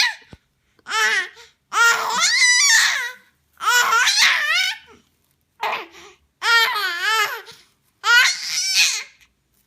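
Baby vocalizing in a series of about six separate high-pitched, wavering calls with short pauses between them.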